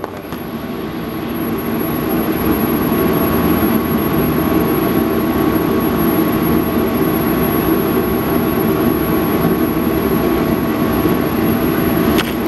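Metal lathe running steadily, its motor and gearing giving a low hum with a faint high whine, building up over the first couple of seconds; a single click near the end.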